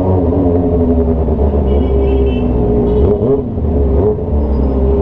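Kawasaki ZX-25R's 249 cc inline-four through a straight-piped GP exhaust, running at low speed with a steady note. About three seconds in, the revs dip briefly and pick up again.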